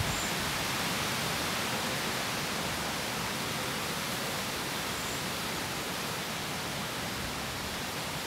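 A steady, even hiss with no distinct sounds in it, and a brief click at the very start.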